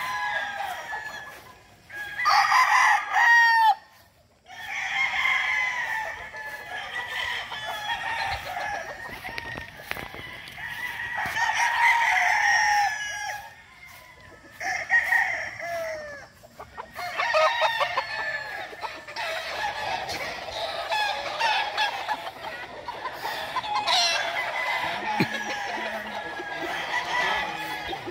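Many gamecocks crowing one after another and over each other, with some clucking, broken by a few short lulls.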